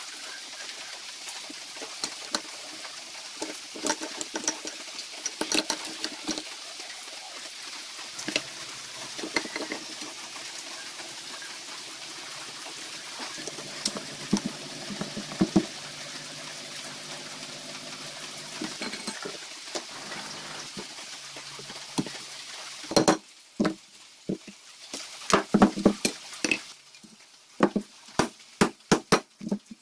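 Small metal clicks and clinks of engine parts being handled over a steady hiss, then, from about two-thirds of the way in, loud hammer strikes in quick irregular runs on a drift set in the aluminium crankcase of a Honda 50cc engine.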